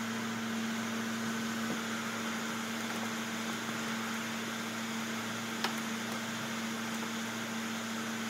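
Steady electrical or mechanical hum at one low pitch over a constant hiss, with a single faint click a little past halfway.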